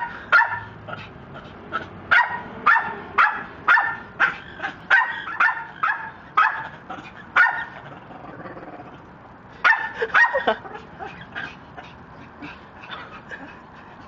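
Red-lored Amazon parrot calling in a rapid series of short, harsh squawks, about two a second, with a brief pause before a louder burst of calls near ten seconds in and fainter calls after.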